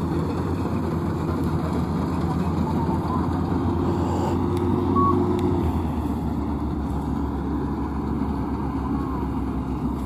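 Maxxi NDR85 combine harvester's engine running steadily as it works through the rice, a constant low drone that deepens slightly a little past the middle.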